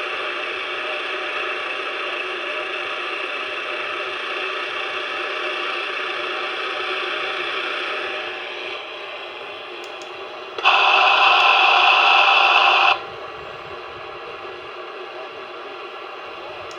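Radio receiver static hiss, steady and then a little quieter after about eight seconds. About two-thirds of the way through it is cut across by a loud, harsh electronic burst lasting about two seconds that starts and stops abruptly.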